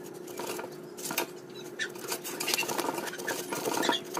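Hand pruning saw cutting through a thick bonsai branch: a run of quick back-and-forth scraping strokes that gets busier and louder about two seconds in.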